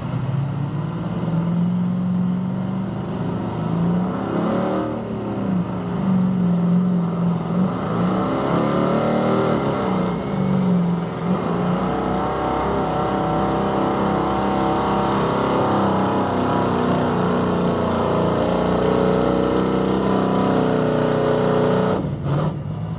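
Square-body GMC pickup truck's engine running hard under load as it drags a weight-transfer pulling sled. The revs dip and recover a couple of times in the first half, then hold high and steady, and fall away suddenly near the end as the pull stops.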